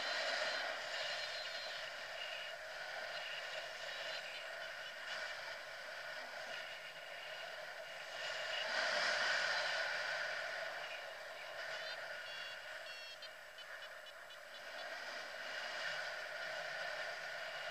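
Wind rushing over a paraglider pilot's action camera in flight, a steady hiss that swells about halfway through and then eases.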